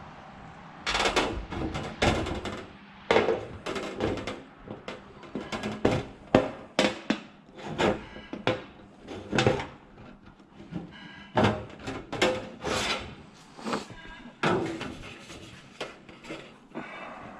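Aluminum trim coil being cut and handled by hand: a long run of irregular short strokes, about one or two a second, with a brief lull near the middle.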